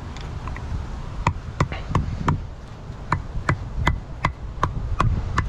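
Rubber mallet tapping an old seal stacked on a new output shaft seal, driving the seal into a BMW rear differential housing. A steady run of sharp taps, about two to three a second, starts about a second in, as the seal is worked in evenly around its edge.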